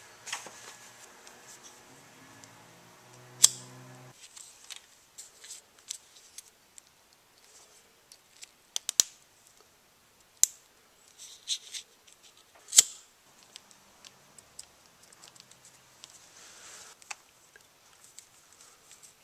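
Hand work on motorcycle wiring: a string of sharp clicks and snaps from wires, plastic connectors and small tools being handled, with the loudest snaps about 3.5 and 13 seconds in. A faint steady hum stops about 4 seconds in.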